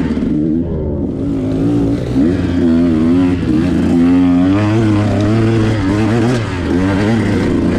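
2021 KTM 125XC two-stroke dirt bike engine running under the rider, revving up and down again and again with the throttle, so its pitch keeps rising and falling.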